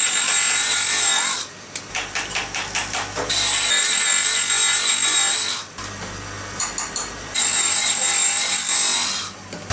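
A small high-speed motor on a bangle-making machine runs with a steady high whine in three runs of about two seconds each. Between the first two runs there is a quieter stretch of rapid clicking.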